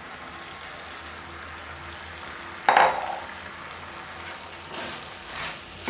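Tamarind-and-spice mixture sizzling steadily in a kadai under freshly added boiled rice, with one sharp clink about three seconds in. Near the end a wooden spatula scrapes and stirs the rice around the pan in a few strokes.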